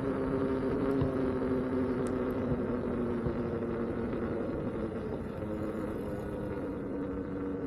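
Electric unicycle hub motor whining with a few steady tones while riding, over wind rumble on the microphone.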